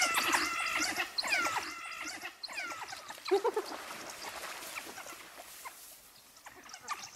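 African wild dogs twittering: a flurry of short, high-pitched squeaky chirps, thickest in the first two seconds and thinning out, with one lower cry about three seconds in.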